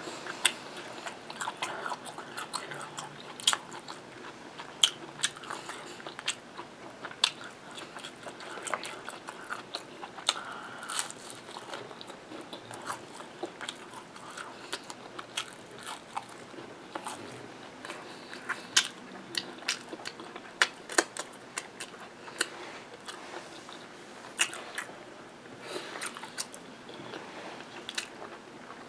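A person chewing food with their mouth: frequent short, sharp wet clicks and smacks at an irregular pace.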